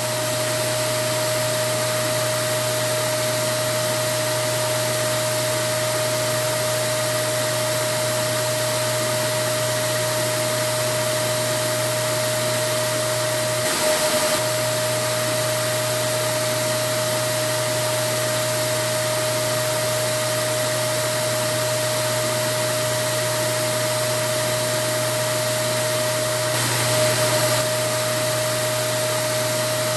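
Vacuum cleaner running steadily: a constant rush of air under a steady whine. The sound swells slightly and briefly twice, about halfway through and near the end.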